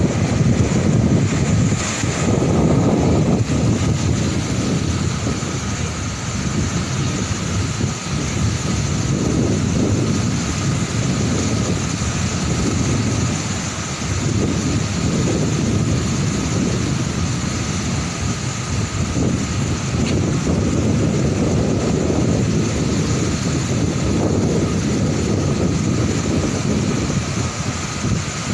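Large, rough waves crashing and washing up a beach in a steady rumble of surf that swells and eases, with wind rumbling on the microphone.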